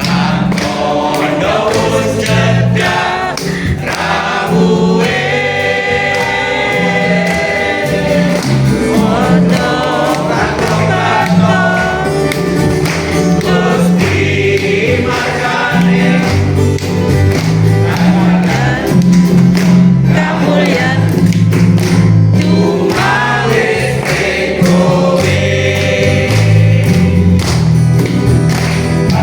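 A choir singing a gospel hymn with instrumental accompaniment: a bass line and a steady beat under the voices.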